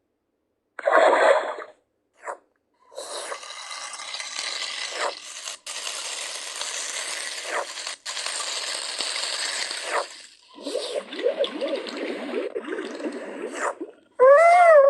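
A rapid string of spliced sound-effect clips: a short loud burst, then a long rattling, scraping stretch broken by abrupt cuts, then a wavering textured stretch, and near the end a short pitched call that rises and falls.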